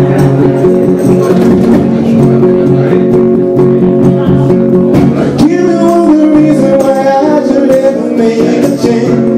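Live band playing with guitars strumming steady chords. About five and a half seconds in, the sound changes and a gliding melodic line comes in over the chords.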